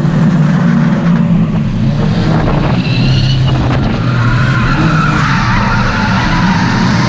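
Volvo wagon engine held at high revs through a tandem drift, with tires squealing as the cars slide sideways. A sharp squeal comes about three seconds in, and a longer wavering squeal follows near the end.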